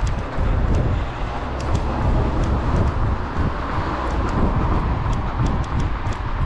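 Footfalls of a runner on a concrete pavement, picked up by a GoPro carried on the run, with wind rumbling on the microphone and road traffic going by; a car passes about four seconds in.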